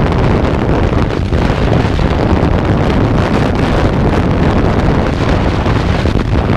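Wind rushing over the microphone of a moving Kawasaki Ninja 300 motorcycle at city road speed, with the bike's parallel-twin engine running steadily underneath.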